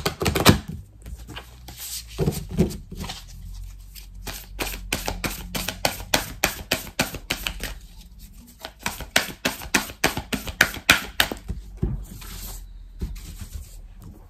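A deck of Starseed Oracle cards being shuffled by hand: rapid runs of card clicks and riffles in several bursts with short pauses between them.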